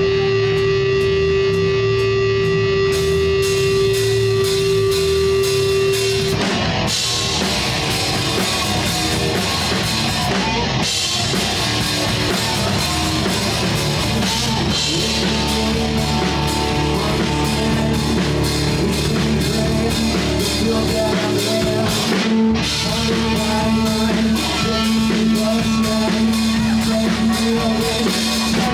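Rock band playing live on drums and electric guitars, loud and continuous. A single note is held over low bass notes at first; about six seconds in, the full band comes in with drums and cymbals.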